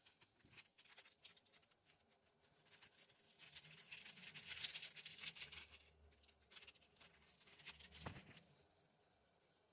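Pot of spicy instant-noodle broth boiling: a faint crackling, popping bubble that swells about halfway through and then dies down.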